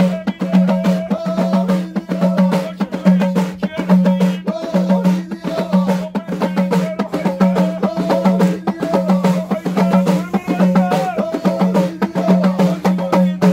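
Abidat Rma troupe of men singing in chorus over a bendir frame drum and small clay taarija hand drums beaten in a dense, steady rhythm.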